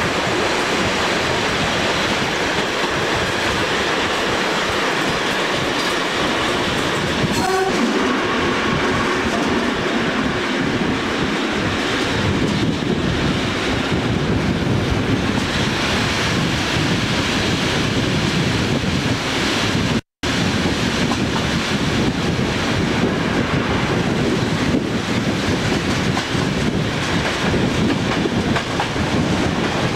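Train running along the track, heard from the carriage at an open window: steady rolling and wheel noise with the clatter of rail joints. A brief tone sounds about seven seconds in, and the sound cuts out for an instant about twenty seconds in.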